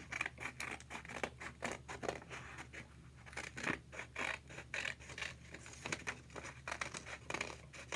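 Scissors cutting through folded construction paper in a rapid run of short snips.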